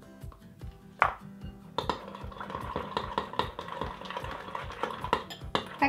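Metal spoon stirring white slime base and food colouring in a glass bowl, scraping against the glass, with a sharp knock about a second in. Background music with a steady beat plays throughout.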